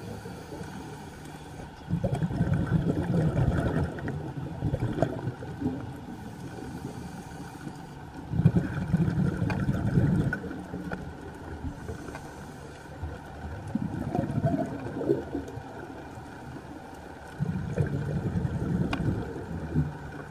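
Underwater diver's breathing through a scuba regulator, recorded on the camera: three exhalations about six to seven seconds apart, each a couple of seconds of low bubbling, with quieter breaths between.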